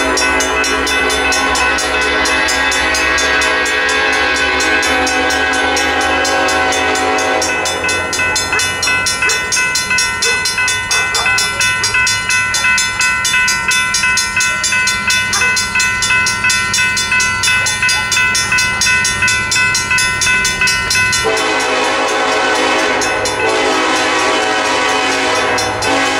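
Railroad crossing signal bells ringing as the crossing activates, from a Safetran mechanical bell and a General Signals Type 3 electronic bell, with a fast, even ding. Over them, an approaching freight train's horn sounds one long blast at the start and another beginning near the end.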